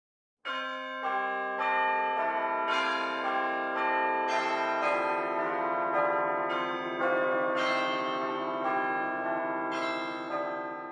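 Bells ringing a steady peal of single strikes, about two a second, each note ringing on under the next. It starts about half a second in, out of silence.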